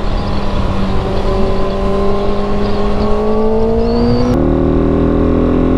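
Kawasaki ZX-6R's inline-four engine through a full-system aftermarket exhaust, pulling steadily with its pitch slowly rising, then the engine note changes suddenly about four seconds in, with wind and road noise underneath.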